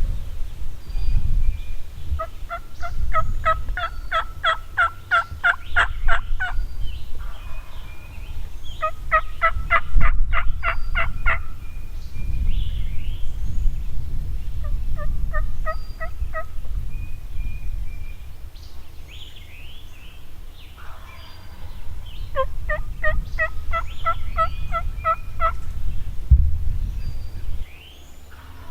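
Turkey yelping: four series of evenly spaced yelps, about four a second, each run lasting a few seconds. Faint songbird chirps and a low wind rumble are in the background, with a sharp tap about ten seconds in.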